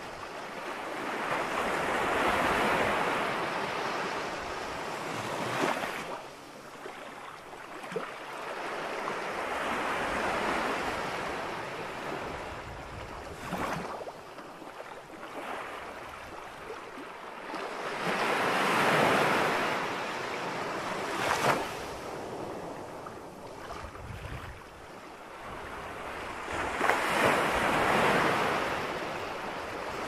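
Small ocean waves washing up a sandy beach: four rushes of surf that swell and fade, one about every eight or nine seconds, with a softer hiss of water between them.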